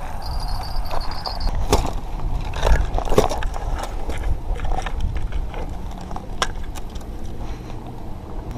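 Handling noise from a landed channel catfish being gripped and weighed: sharp clicks and rattles of a metal lip-gripper and a digital fishing scale, with rustling on gravel, over wind rumble on the microphone. A brief high beep sounds near the start.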